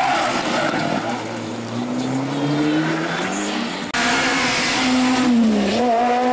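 Rally car engines at full throttle: a Subaru Impreza rally car accelerates hard, its engine note climbing steadily. About four seconds in, the sound cuts abruptly to another rally car driving hard, its engine note dipping and rising.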